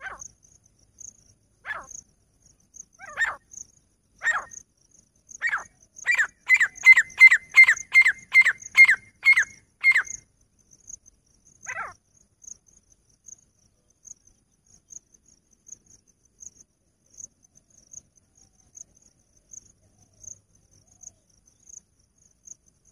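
Grey francolin calling: loud, sharp, piercing notes, at first one every second or so, then a fast run of about ten notes about six seconds in. One last note comes near twelve seconds, then the calling stops. A high, faint insect chirp ticks steadily in the background.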